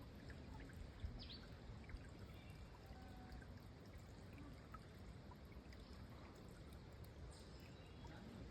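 Small spring trickling steadily and faintly, with a few short bird chirps scattered over it.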